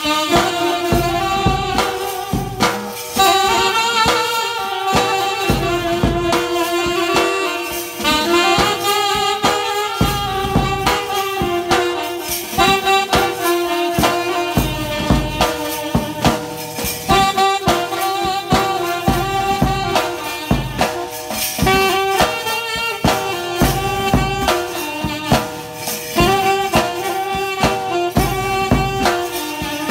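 A small band of saxophones playing a melody together over a steady beat on drums struck with sticks.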